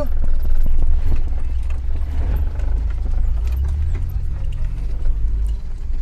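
Vehicle driving on an unpaved dirt road, heard from inside the cab: a steady low rumble of engine and tyres, with frequent knocks and rattles as it rides over the rough surface.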